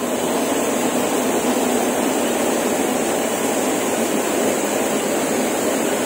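Steady, loud rushing of a waterfall pouring into a rock pool.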